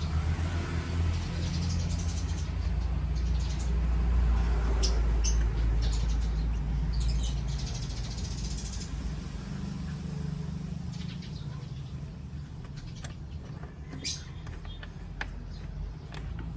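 Screwdriver working a screw out of a scooter's plastic air filter box: scattered small clicks and scrapes, over a low rumble that is strongest in the first half and fades.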